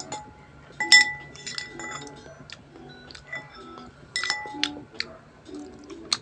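Metal fork and knife clinking against a plate while cutting pizza: a series of sharp clinks, some with a brief ring. The loudest comes about a second in, with a cluster around four seconds in.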